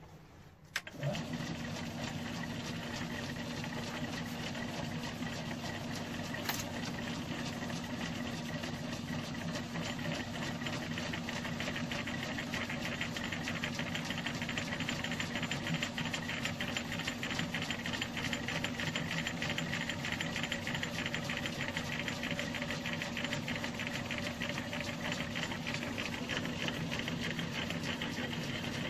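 Metal lathe starting up about a second in and then running steadily, with a steady hum and a fine, rapid mechanical rattle.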